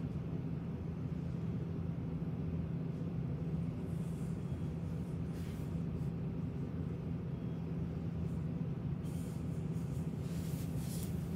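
A steady low hum, with faint brief rustling about five seconds in and again near the end.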